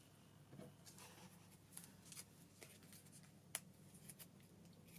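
Near silence with faint paper rustles and small ticks from glue dots being peeled off their paper backing and pressed onto cardboard toilet rolls; one sharper tick about three and a half seconds in.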